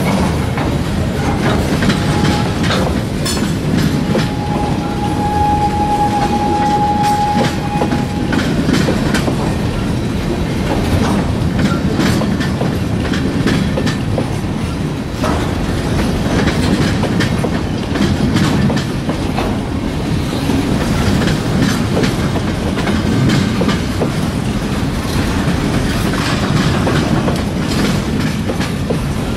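Freight train of bulkhead flatcars rolling past at close range: a steady rumble with wheels clicking over the rail joints. A thin, steady high tone rings for about four seconds, starting about four seconds in.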